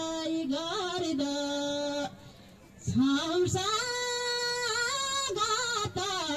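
A single voice singing a Nepali Thadi Bhaka folk melody with no instruments: long held notes broken by quick wavering turns, with a short pause for breath about two seconds in.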